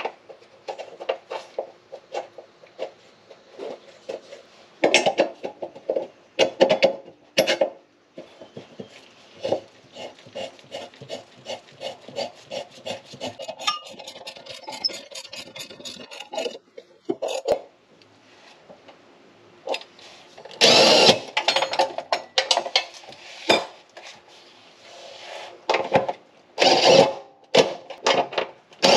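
Bolts being worked loose under a car: a hand ratchet clicking in quick, even strokes, then a few short, loud bursts from a cordless power tool in the second half.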